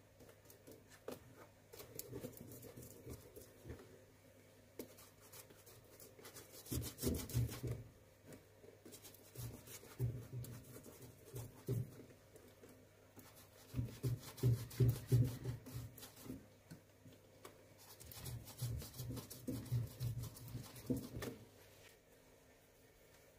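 A glue brush scraping in quick strokes over the rough leather midsole of a shoe as glue is spread on, in several bursts of brushing with short pauses between. A faint steady low hum runs underneath.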